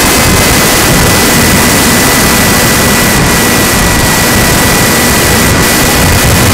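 RadJet RC plane's electric motor and propeller running at steady throttle: a loud, even rush of noise with a constant high whine.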